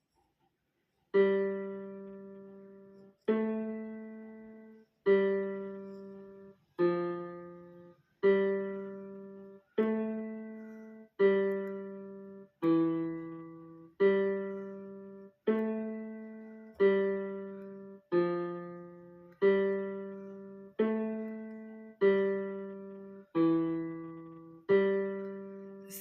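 Keyboard playing the instrumental intro of a slow song: about fourteen single struck chords, one every one and a half to two seconds, each left to fade before the next, with the harmony shifting from chord to chord.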